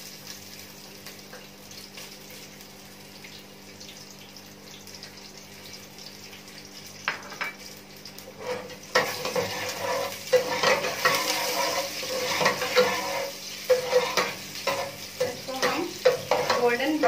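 Chopped onion frying in hot oil in an aluminium pot, sizzling quietly at first. From about nine seconds in, a metal spoon stirs and scrapes against the pot with frequent clinks over louder sizzling.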